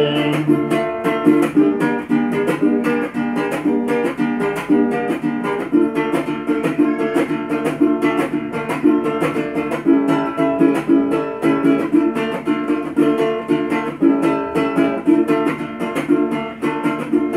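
A cuatro, a small four-string guitar, strummed solo in a quick, steady rhythm: an instrumental passage between sung verses.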